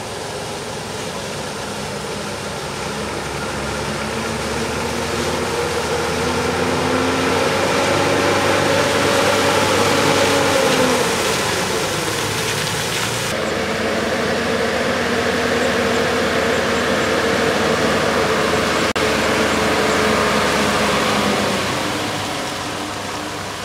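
Ashok Leyland truck's diesel engine running as the truck drives by, getting louder and then easing off, its pitch rising and falling with the throttle. The sound breaks off abruptly about thirteen seconds in and goes on as a steadier engine note.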